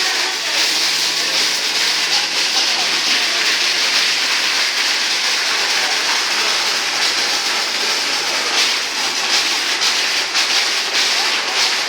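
Touchless car washing machine running: a steady, even hiss from its jets, with a faint low hum underneath.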